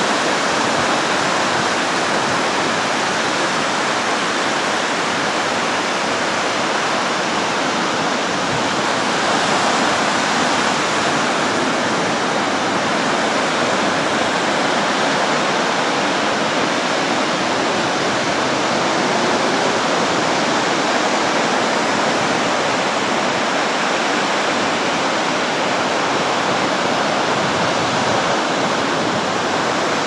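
Stormy sea surf: waves breaking and washing up a sandy beach in a steady, unbroken rush.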